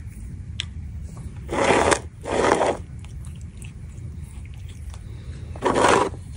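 Three short scraping, crunching noises as a Bengal cat noses at and paws a plastic food tub on asphalt, over a low steady rumble.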